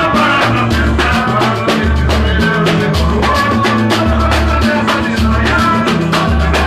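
Band music with a steady, busy percussion beat over a bass line that moves in separate held notes, with melodic lines above.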